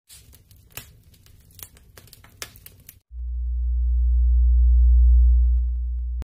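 Intro sound effects: about three seconds of scattered crackles and clicks over a faint low rumble, then a deep bass drone that swells, eases off a little, and cuts off suddenly with a click near the end.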